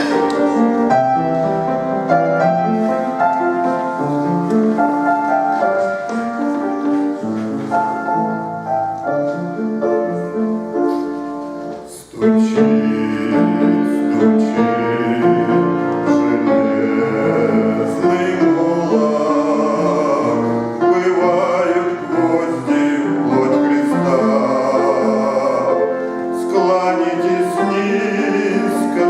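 A Christian hymn: a keyboard introduction of steady held chords and melody, then about twelve seconds in, after a brief dip, singing begins over the accompaniment.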